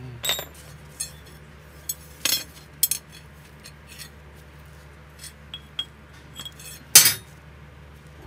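Thin iron rods clinking and tapping against one another and the concrete floor as they are laid down: a scattered series of short, light metallic clinks, the loudest about seven seconds in.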